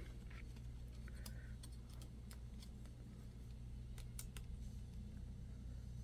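Faint, scattered small clicks and ticks of hands working on an open laptop, seating the LCD cable's connector on the motherboard.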